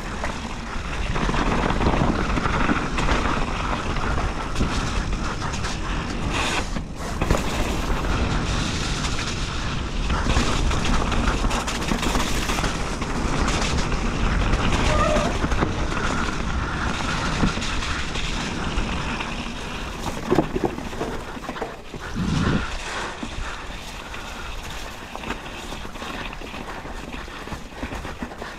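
Mountain bike riding a muddy, snowy trail: a steady rushing noise of the ride, with the tyres and the bike rattling and knocking over the ground, a little quieter near the end.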